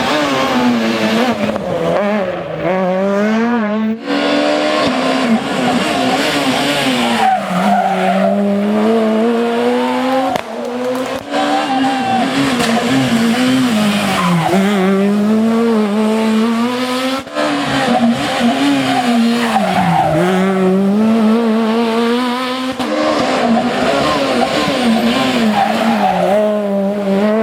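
Super 2000 rally cars' naturally aspirated four-cylinder engines at high revs, the pitch climbing and dropping again and again through gear changes and lifts, with tyres squealing and skidding on the gravel or tarmac. The sound jumps abruptly a few times as different cars pass.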